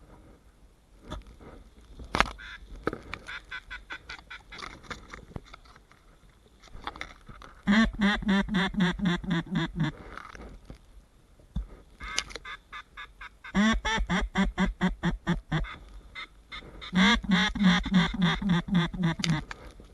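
Ducks quacking in quick, evenly paced runs of calls. Three loud runs come about eight, fourteen and seventeen seconds in, with quieter quacking before them.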